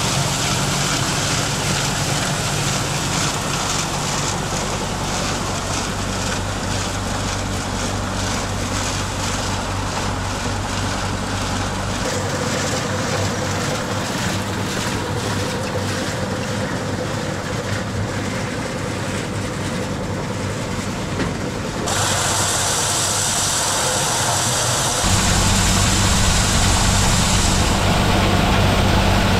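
A machine or engine running steadily with a low hum. Its sound shifts abruptly about 12, 22 and 25 seconds in.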